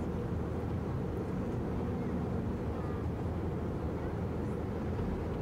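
Steady low rumble of cabin noise inside an Airbus A321 airliner, heard from a passenger seat.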